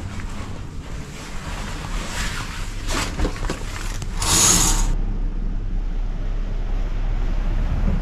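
Wind buffeting the microphone over a low rumble, with a brief loud gust of hiss about four seconds in; after it the rumble goes on steadily.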